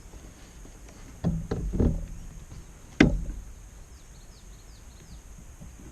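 Dull bumps and knocks against a kayak hull during a fish fight: a few low thumps about a second in, then one sharp knock about three seconds in.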